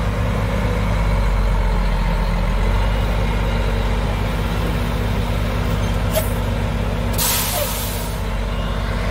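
Mack Superliner log truck's diesel engine idling steadily, with a short loud hiss of air about seven seconds in as the air brakes are released.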